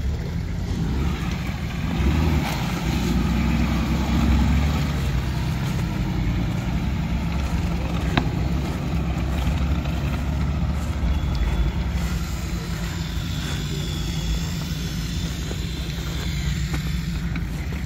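Off-road four-wheel-drive vehicle's engine running steadily as it drives over rough track, with a single brief knock about halfway through.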